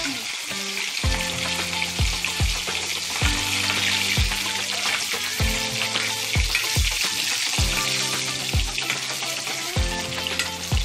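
Pieces of snakehead fish frying in plenty of hot mustard oil in an iron kadai: a steady, dense sizzle. Low pitched tones start sharply about once a second underneath.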